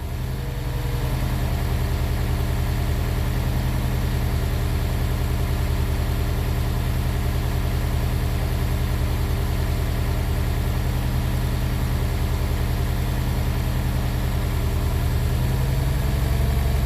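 Honda S2000's four-cylinder engine idling steadily with a misfire, its low exhaust note pulsing evenly and rising slightly in level near the end.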